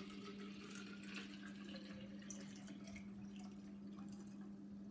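Water poured from a glass pitcher into a fruit-infuser water bottle, a faint trickle and splash as the bottle fills, over a steady low hum.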